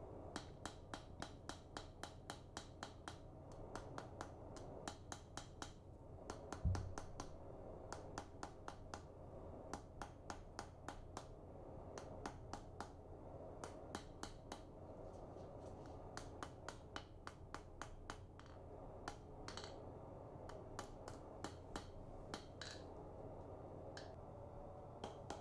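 Hand hammer striking a hot knife blade on an anvil while bending a curve into it, heard faintly as a long run of sharp, fairly regular clicks about two to three a second. A duller thump about seven seconds in.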